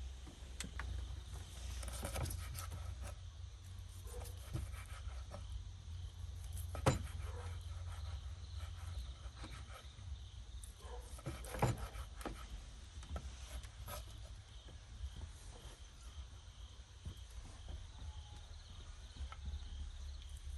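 Scattered light knocks and clicks over a steady low rumble, with two sharper knocks about seven and twelve seconds in.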